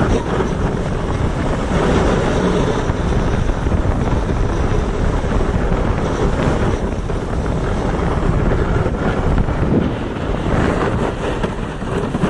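Wind buffeting a mobile phone's microphone: a loud, steady rushing noise with small surges and no clear tone.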